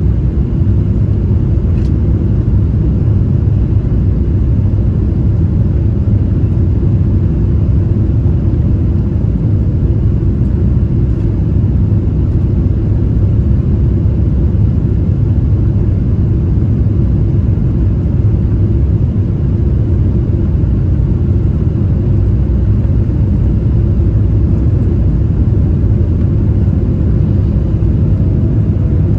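Cabin noise inside a Boeing 777-300ER on final approach: the steady low rumble of its GE90 engines and the airflow past the wing and flaps, with a faint engine whine that edges up in pitch near the end.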